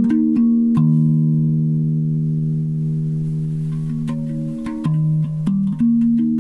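Idiopan Dominus steel tongue drum in the Amunet scale (Eb / G Bb C# Eb F G Bb C# Eb), struck with the fingertips. A few quick notes come first, then the low Eb is left to ring for about four seconds, and more notes come in near the end.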